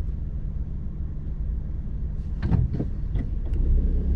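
Steady low rumble of a car driving, heard from inside the cabin, with a quick cluster of knocks and clicks about two and a half seconds in.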